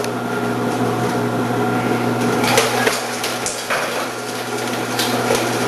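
Electric vegetable slicer's motor running with a steady hum as cucumbers are fed down the chute and cut by the spinning 2 mm slicing disc, with a few sharp knocks from the produce and plunger in the chute.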